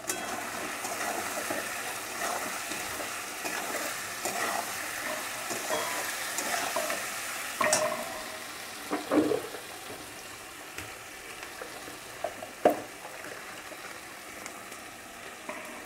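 Potatoes, onions and tomatoes sizzling in oil in a metal kadai, stirred with a flat metal spatula. The sizzle runs steadily, with a few sharper scrapes and knocks of the spatula against the pan, the loudest about 13 seconds in.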